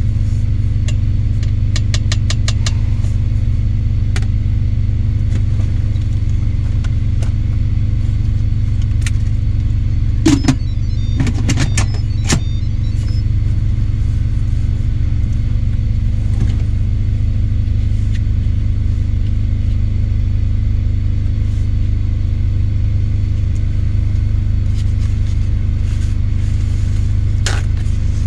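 Steady low rumble of an idling diesel engine, heard inside a semi-truck cab. A few light clicks and knocks come through, most of them about ten to twelve seconds in.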